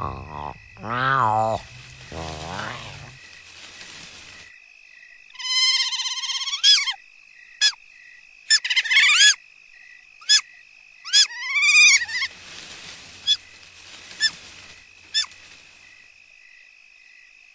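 Dubbed animal calls voicing the Chiniquodon mother and pup: low cries that waver in pitch in the first three seconds, then higher, shriller calls and short squeaks from about five to twelve seconds in. A steady high insect chirring runs underneath.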